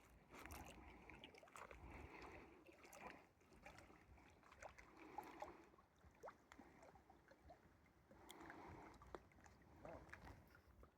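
Near silence: faint outdoor background with a few soft swells and small clicks.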